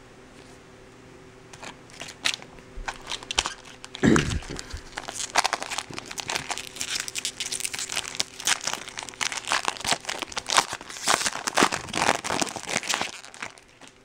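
Foil wrapper of a 2013 Bowman baseball card pack crinkling and tearing as it is opened by hand. There is a louder bump about four seconds in, then dense crackling that dies away shortly before the end.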